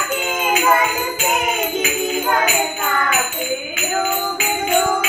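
Voices singing a Hindu devotional aarti, with fast, regular jingling percussion beneath the melody.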